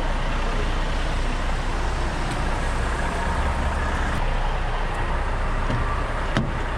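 Steady vehicle noise with a low engine rumble, as of heavy vehicles running and traffic passing on the road. A single short click comes near the end.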